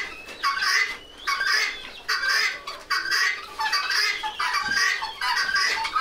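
Penned barn poultry calling: a continuous run of harsh, repeated squawking calls, about two a second.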